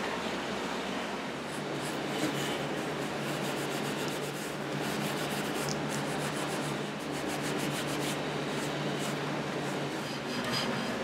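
Acetone-wet steel wool and a rag scrubbed by hand along the turned mahogany legs of a table, in quick repeated rubbing strokes that strip the old finish, over the steady hum of a box fan.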